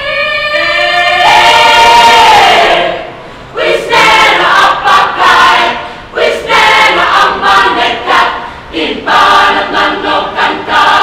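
Choir singing a cappella, held chords in phrases of about two to three seconds with brief breaths between them.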